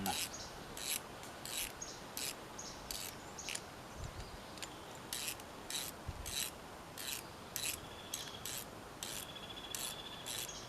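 Ratchet wrench running the front sprocket retainer bolts down, a steady series of short rasping strokes about twice a second.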